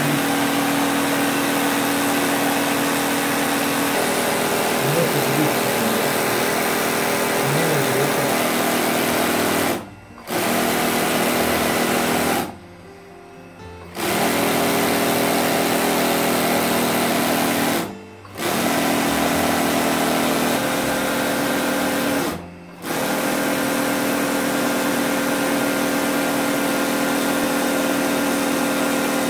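Motor-driven sewing machine stitching a coiled braid into a hat. It runs with a steady hum and stops briefly four times: about ten seconds in, for a little over a second around thirteen seconds, and again near eighteen and twenty-two seconds.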